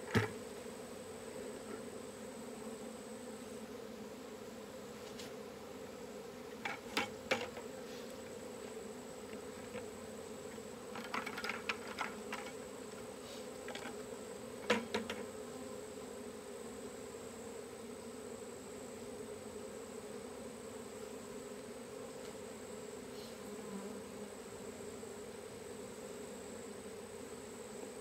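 Honeybee swarm buzzing, a steady continuous hum, with a few short scattered knocks and rustles over it.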